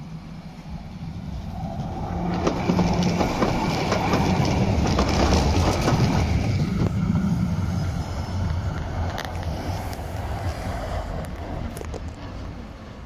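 A tram passing close by, its wheels running on the rails along with its motors. The sound swells over the first few seconds, is loudest from about three to seven seconds in, then fades away.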